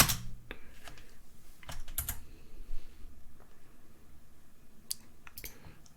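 Typing on a computer keyboard: a scattering of separate key clicks, irregularly spaced.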